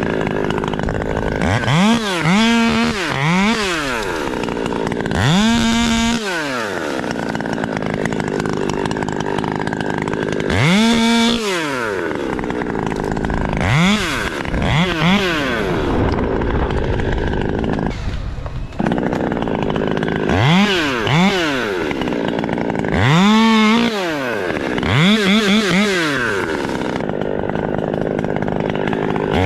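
Chainsaw engine running, revved up and back down a dozen or so times, sometimes held at full speed for about a second, and dropping back to idle between revs.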